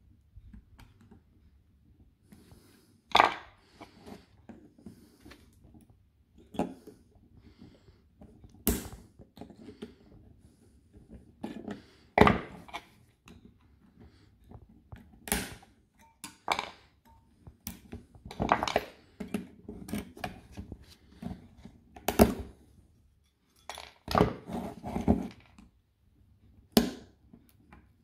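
Irregular sharp metallic snaps and scrapes as a small screwdriver pries welded metal connector strips off the 18650 cells of a DeWalt Flexvolt DCB546 battery pack, about a dozen at uneven intervals.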